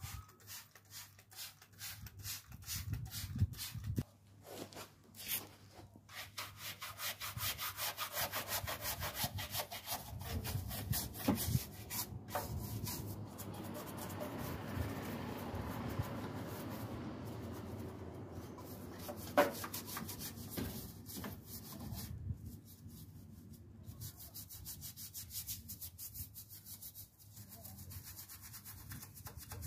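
Scrubbing inside a car's wheel arch: rapid back-and-forth rubbing strokes against the grimy wheel house and suspension parts, with a few short pauses.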